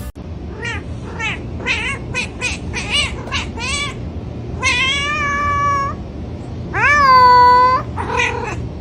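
Domestic cat meowing: a quick run of about seven short meows, then two long drawn-out meows, the second the loudest, and one last short meow near the end, over a steady low hum.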